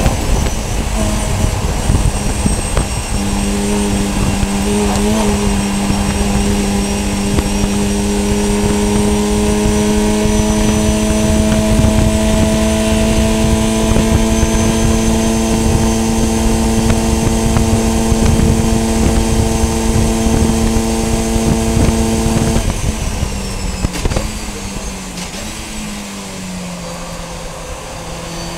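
In-car sound of a VW Fun Cup race car's engine at full throttle, holding a steady note that creeps slightly higher over heavy wind and road noise. Near the end the throttle lifts and the note drops in steps, as it does with downshifts under braking.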